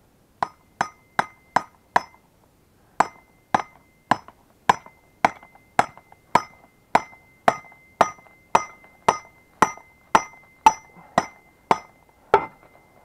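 Hammer blows knocking the axle out of a Buran snowmobile's road-wheel bogie: five quick strikes, a short pause, then about eighteen steady strikes nearly two a second. Each blow leaves a metallic ring hanging between strikes. The axle is coming out with effort but gradually.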